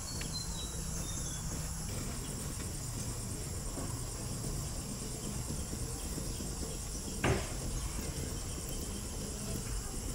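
Insects chirring steadily at a high pitch, with a single short knock about seven seconds in.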